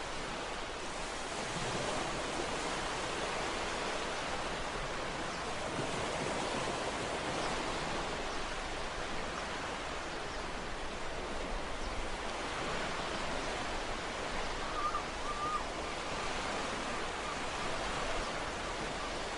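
Ocean surf washing steadily on a shore, swelling and easing gently, with a faint short wavering tone about three-quarters of the way through.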